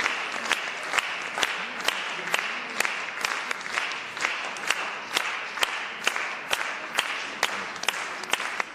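Theatre audience applauding a ballet, with sharp claps in a steady beat about twice a second standing out over the general clapping.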